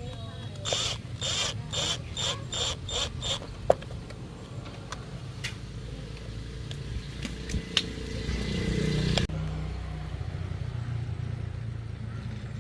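Workshop hand-tool work: about eight quick, rhythmic scraping strokes near the start, a couple of sharp clicks, and under it all a low hum that swells and then cuts off suddenly a little past the middle.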